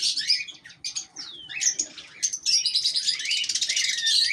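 Cockatiels chirping and whistling: a run of short rising and falling calls, then a fast, continuous chatter through the second half.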